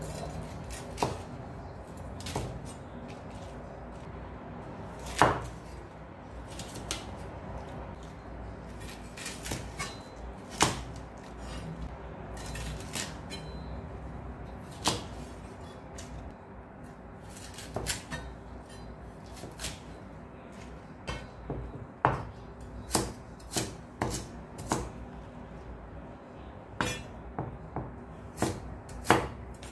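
A large kitchen knife cuts cabbage on a wooden cutting board, each stroke a sharp knock as the blade meets the board. The knocks are irregular and spread out at first, then come quicker, about one a second, in the last third.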